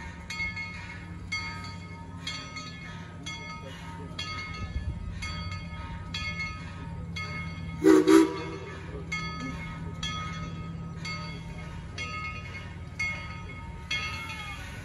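Locomotive bell clanging steadily, about two strikes a second, over a steady low hum. About eight seconds in, a train whistle gives a short, loud double toot.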